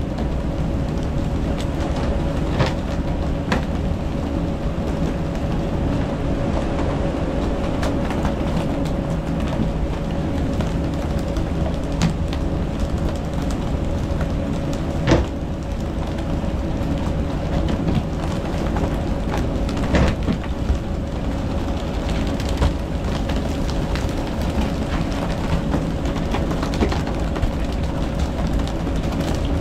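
Boat engine running steadily under a wash of water and wind noise, with occasional sharp knocks.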